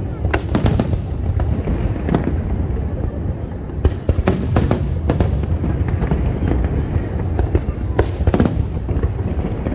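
Fireworks display bursting overhead: clusters of sharp cracks about half a second in, again around four to five seconds in and near eight seconds, over a continuous low rumble.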